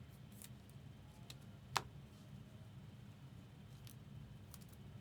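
Faint clicks and taps of trading cards and packaging being handled, with one sharper click a little under two seconds in, over a low steady hum.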